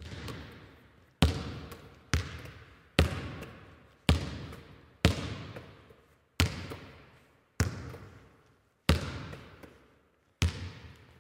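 A basketball dribbled slowly on a hardwood gym floor, nine bounces about a second apart, each ringing on in a long echo through the gym.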